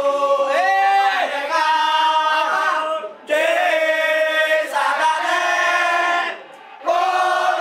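A group of football supporters singing a chant together in unison, in sung phrases broken twice by short pauses.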